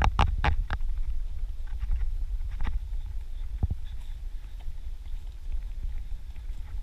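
Wind buffeting the camera microphone as a steady low rumble, with scattered footsteps and taps as the person moves along a grassy dirt path; three quick taps come right at the start.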